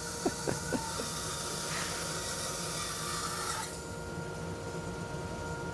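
Bandsaw running and cutting through thick walnut stock, a steady hiss over the motor's hum, with a few light knocks of the board near the start. About two-thirds of the way through the cutting hiss drops away while the saw keeps running.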